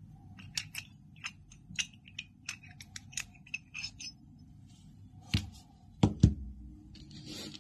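Small metal parts of a fidget toy clicking and scraping together in the hands as the centre shaft is worked out of the body, followed by three heavier knocks as metal parts are set down on a table, and a short rustle near the end.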